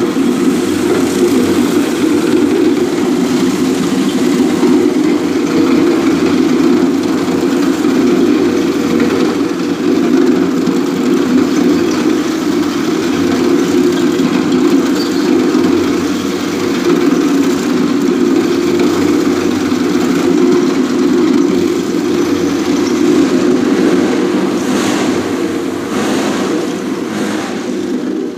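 Concrete floor grinding machine running steadily with a loud, even drone, with a few brief knocks near the end.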